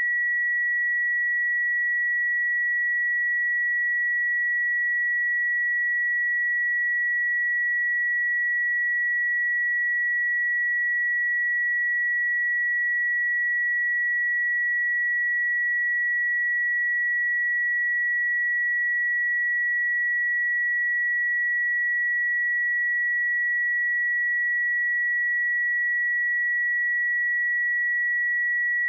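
A steady pure sine-wave test tone at 1931 Hz, a single unchanging high beep-like pitch at constant loudness.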